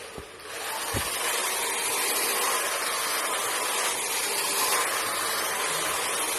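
Dragon 3000 LED hair dryer blowing air with a steady rushing hiss, building up over the first half second and then holding even.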